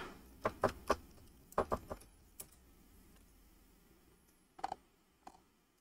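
Scattered keystrokes on a computer keyboard: a few short clusters of taps in the first two seconds, then a pause, and a couple more near the end.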